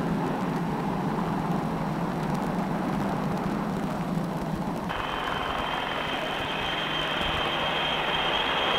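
Jet engine noise of the Boeing 367-80 (Dash 80) prototype's four Pratt & Whitney JT3 turbojets as it climbs after takeoff: a steady rushing noise with a low hum. About five seconds in the hum drops away and a high steady whine comes in over a brighter rush.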